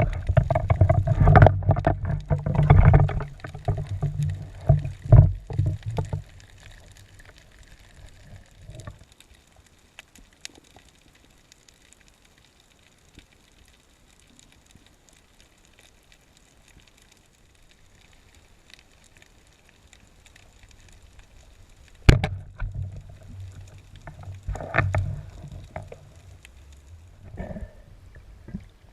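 Water sloshing and gurgling close to the microphone for the first few seconds. Then a long, much quieter stretch with faint scattered clicks. About 22 seconds in there is a sharp knock, and the sloshing surges return in bursts.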